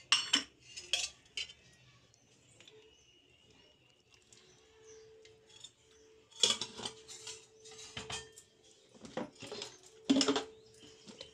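Metal kitchenware clattering: an aluminium pot, its lid and steel containers knocked and set down in separate sharp clinks, a few near the start and more from about six seconds in.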